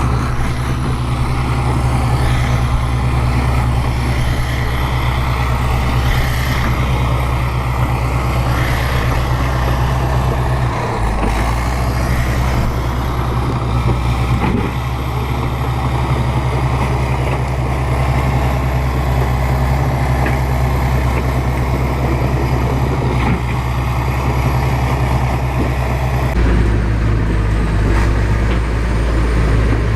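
Bulldozer's diesel engine running with a steady low drone and a faint high whine above it. The sound shifts abruptly about eleven seconds in and again a few seconds before the end.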